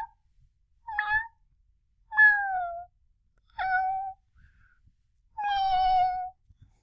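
A man imitating a cat, giving a string of meows: four separate calls, each sliding a little down in pitch, the last the longest.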